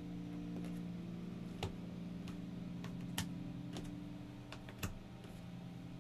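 Cardboard jigsaw puzzle pieces being picked up, set down and pressed into place on the table: a string of light, irregular clicks and taps, the sharpest about three seconds in and again near five seconds. A low steady hum runs underneath.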